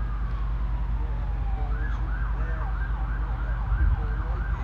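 A siren sliding slowly down in pitch, then switching about two seconds in to a quick rising-and-falling yelp about twice a second. A steady low hum runs underneath.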